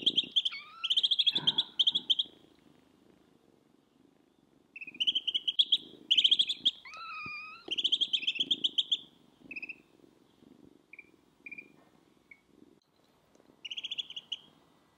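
Two ducklings peeping in bursts of rapid, high, repeated peeps, with a kitten giving a short meow about halfway through.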